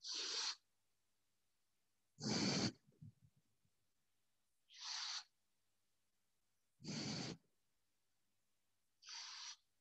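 A person breathing audibly: five short breaths about two seconds apart, each starting and stopping abruptly, with dead silence between.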